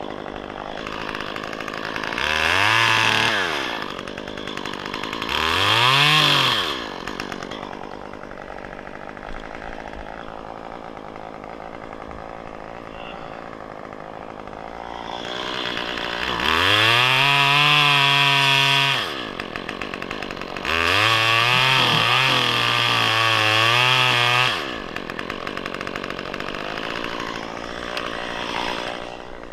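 Top-handle two-stroke chainsaw idling, revved up four times: two short blips early on, then two longer runs of a few seconds each at full throttle before dropping back to idle.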